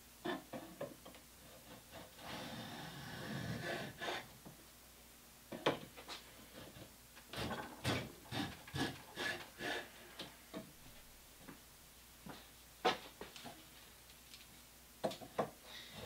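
A wooden axe handle being worked by hand: irregular knocks and clacks with two stretches of rubbing or scraping against the wood.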